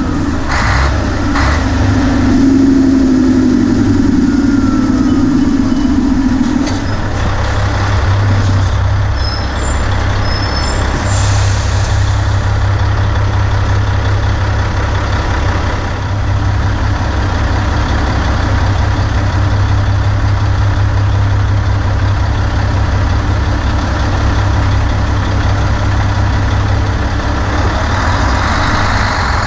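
Nissan Diesel KG48U truck crane's 12.5 L Nissan PF6TB turbocharged intercooled diesel engine running steadily as the crane is driven, a deep low drone throughout. A higher droning note over it drops away about six seconds in.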